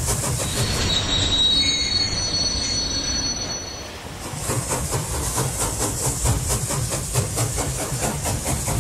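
Train wheels squealing on the rails with several steady high-pitched tones for the first few seconds. The squeal then gives way to an even rhythmic clatter of wheels over rail joints, about four to five beats a second.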